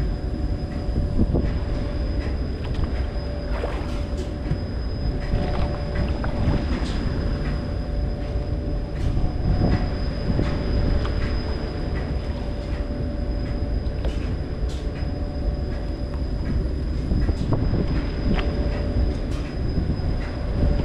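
Engine running steadily: a low rumble with a constant hum, and a few light clicks and knocks over it.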